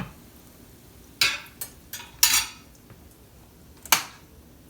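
Utensils clinking and scraping against dishes in a few separate short strokes, one a little longer scrape, as cooked food is handled and served.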